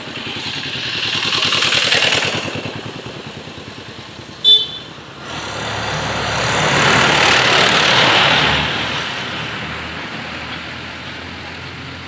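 Road vehicles passing, each rising and then fading away, one early and a longer one later, with a short horn toot about four and a half seconds in.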